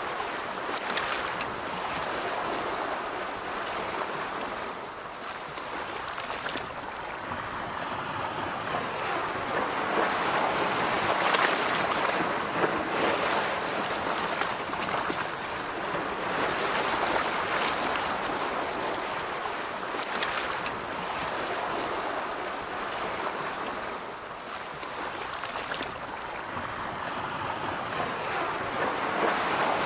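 Ocean surf washing onto a beach, a steady rush of breaking waves that swells and fades slowly every several seconds.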